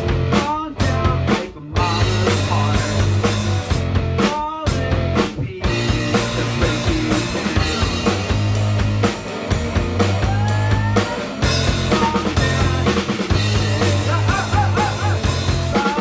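Rock band playing a song: drum kit, bass and guitar, with sliding guitar notes.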